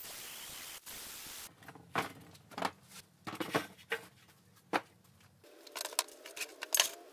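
A steady hiss for about a second and a half, then cuts off; then a series of irregular knocks and clanks as cut lengths of rusty steel rectangular tubing are set down and shifted against each other on a plastic workbench, a few with a short ring.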